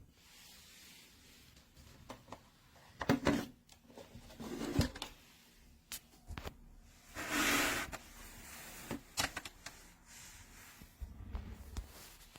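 Handling noises on a desk: scattered clicks and knocks, with a brief rustling swish about halfway through.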